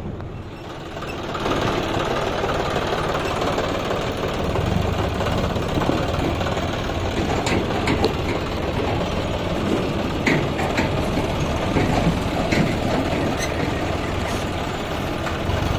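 John Deere 5050 E tractor's three-cylinder diesel engine running steadily, coming up in level about a second and a half in.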